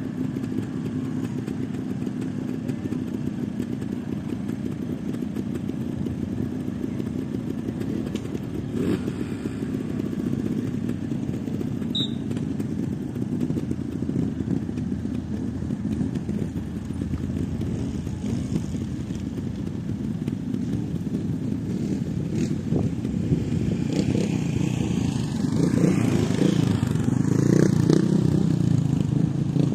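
Several trials motorcycle engines running at idle, with revs rising and falling as a rider blips the throttle; louder over the last few seconds.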